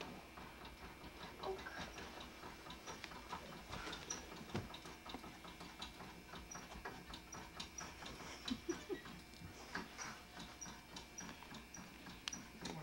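Faint scattered clicks and knocks, with a light, even ticking through the second half.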